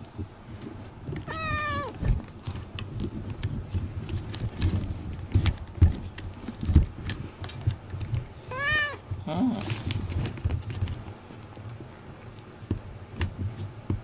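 Domestic cat meowing twice, a short meow about a second in and a slightly longer arched one near nine seconds in, with soft rustling and bumps close to the microphone.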